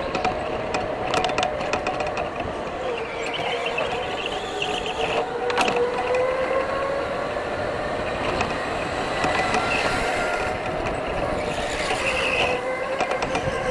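Onboard an electric racing go-kart: the motor's whine rises and falls in pitch with speed through the corners, over a bed of tyre and chassis noise. A sharp knock comes about five and a half seconds in.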